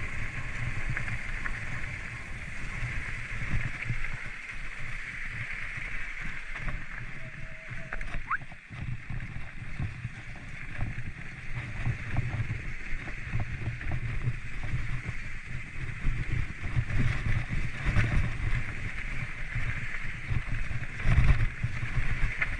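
Mountain bike riding over a rough trail: a steady rumble of tyres and wind on the microphone, with frequent clicks and rattles from the bike.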